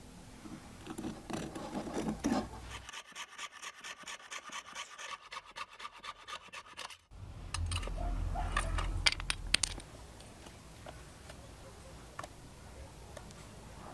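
Fret saw with a thin spiral blade cutting a shape out of a small wooden board in quick, even strokes, several a second; the sawing stops abruptly about halfway through. Before it there is scraping as the blade is handled, and after it clicks and light knocks from working the piece.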